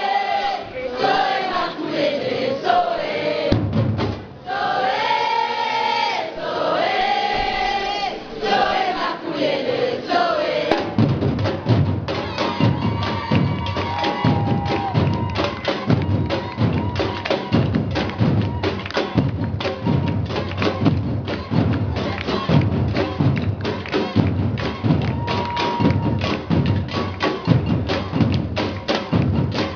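Group singing a maculelê song, then, about eleven seconds in, wooden maculelê sticks start clacking together in a fast, even rhythm with drumming, while the singing carries on beneath.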